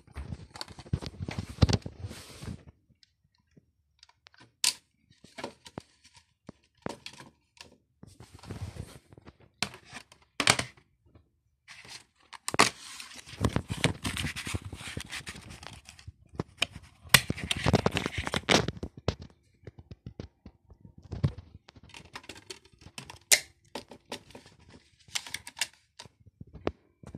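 Handling noises of a plastic DVD case and disc: scattered clicks and knocks with stretches of rustling. Near the end a hand works a slim external USB DVD drive.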